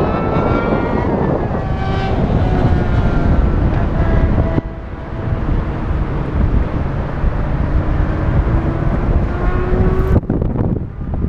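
Strong wind buffeting the microphone in paraglider flight, with faint whistling tones that slowly drift in pitch. A sharp knock near the end briefly cuts through.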